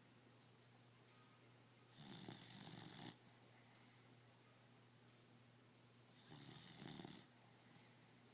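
Snoring in slow, even breaths: two rough snores, about two and six seconds in, each lasting about a second.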